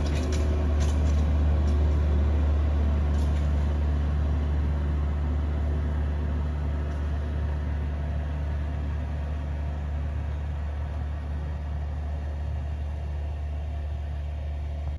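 An engine running steadily with a low hum, slowly getting quieter, and cutting off abruptly at the end.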